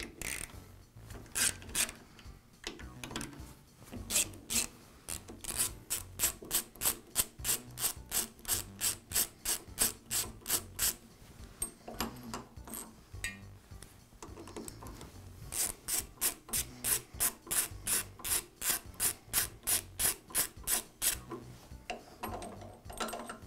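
Screws of a drill press's depth stop indicator block being turned out with a screwdriver: two runs of regular scraping clicks, about three a second, one run for each of the two screws, with a pause between them.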